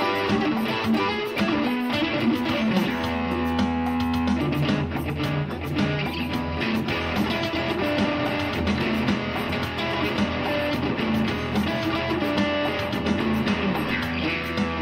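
Electric guitar played through an amplifier, with shifting single notes and chords. A steady low note sounds beneath from about three seconds in.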